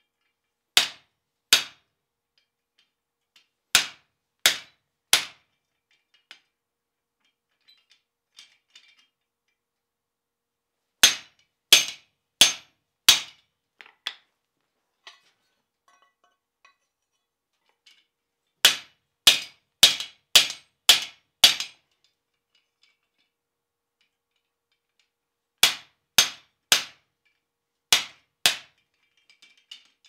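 Hand hammer striking the top die of a guillotine tool on the anvil, fullering hot steel to form a tenon. Sharp metallic blows come in five bursts of two to six, about half a second apart, with pauses of a few seconds between bursts.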